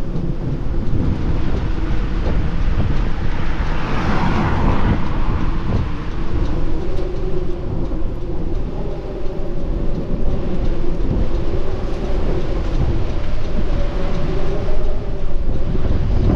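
A car being driven fast, heard from inside the cabin: a steady rumble of road and engine noise with a droning hum, and a brief louder rush about four seconds in.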